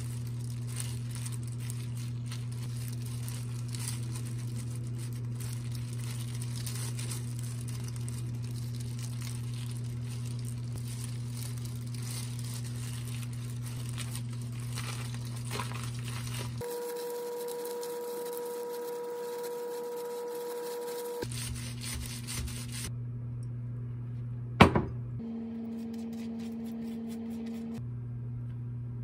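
Thin plastic food-prep gloves crinkling and rustling as hands spread shredded cabbage and lettuce over a seaweed sheet on a bamboo rolling mat, over a steady low hum. One sharp knock about three-quarters of the way through is the loudest sound.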